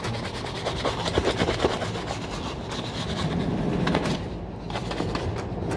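Stiff shoe brush buffing a polished leather shoe, a quick run of rasping back-and-forth strokes that thins out and quietens about four seconds in.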